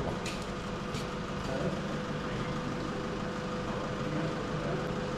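Tractor engine idling steadily, with a steady hum running through it. A couple of light clicks in the first second come from a light plug being handled.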